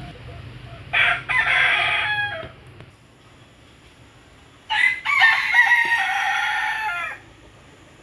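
A rooster crowing twice, each crow a short opening note running into a long held one that drops in pitch at the end.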